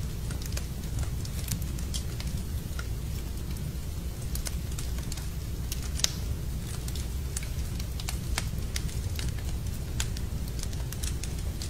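Wood fire crackling in a fireplace: irregular sharp pops and snaps over a steady low rumble, with one louder pop about six seconds in.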